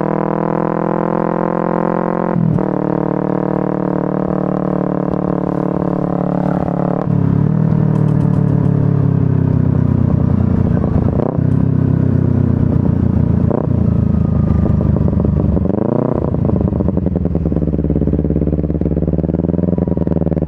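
Honda Supra underbone motorcycle with a swapped-in Kawasaki Ninja 250 engine, ridden along with the engine holding a steady drone. The note breaks briefly a few times, and about sixteen seconds in it dips and swings back up in pitch.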